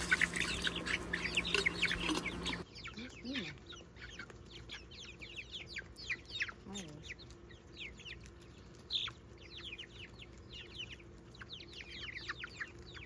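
A flock of young chickens peeping and cheeping as they feed, many short, falling chirps overlapping without pause, louder in the first couple of seconds.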